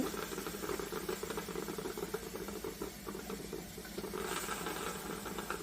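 Hot drip coffee maker crackling and ticking as it cools after a brewing cycle: many small irregular clicks over a steady low hum.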